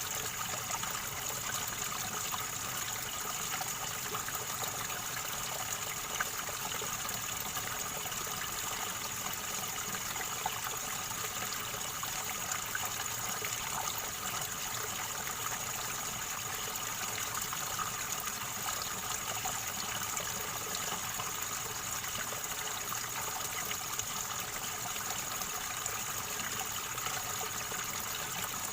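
River water gurgling and trickling, a steady unbroken flow.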